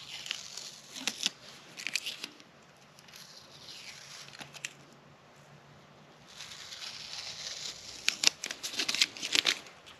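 Paint-covered masking tape being peeled and picked off a motor's metal nameplate: crackly tearing and scratching in irregular bursts, with sharper clusters about a second or two in and again near the end.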